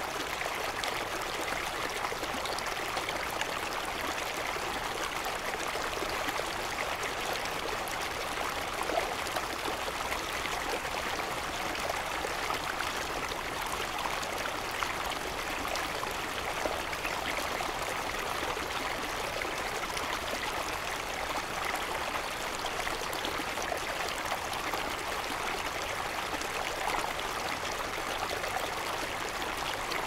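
Steady running water of a stream.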